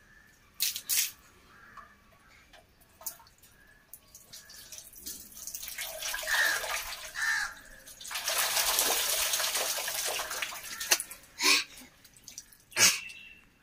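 Water poured from a plastic mug over a child's head, splashing onto a tiled floor, with the mug dipping into a metal basin of water. Several short splashes, and one longer pour about eight seconds in that runs for some three seconds and is the loudest sound.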